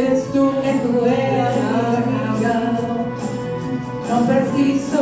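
Karaoke backing track of a slow ballad playing, with women's voices singing along through handheld microphones.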